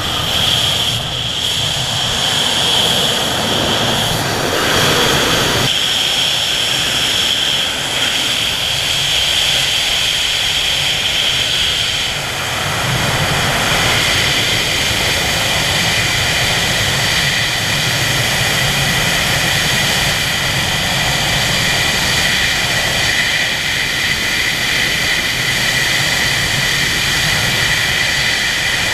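Rushing freefall wind over the camera's microphone, loud and steady, with a whistle that shifts lower about twelve seconds in.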